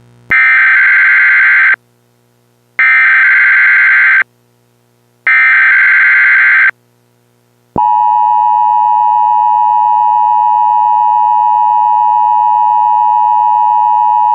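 Emergency Alert System signalling: three digital data bursts of the SAME header, each about a second and a half long with short gaps, then the steady two-tone EAS attention signal (853 and 960 Hz together) starting about eight seconds in and holding.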